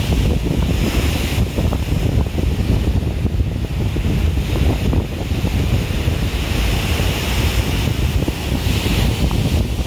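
Sea surf breaking and washing over a rocky seawall, with heavy wind buffeting the microphone in a steady, gusting rumble.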